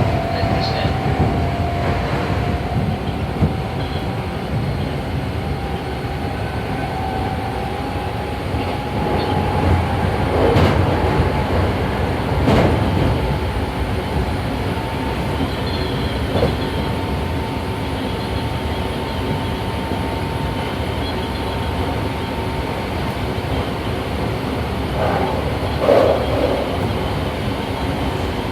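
Hankyu 7300 series electric train heard from inside, its field-chopper-controlled traction motor whining and rising in pitch as the train gathers speed, then holding steady. The motor has a soft, rubbing tone unusual for the 7300 series. Wheels knock over rail joints several times over the running noise.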